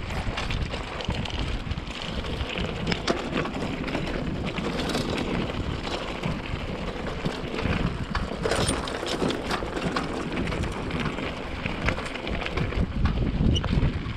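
Mountain bike riding over a trail, with wind buffeting the action camera's microphone and many small clicks and clatters from the bike over rough ground.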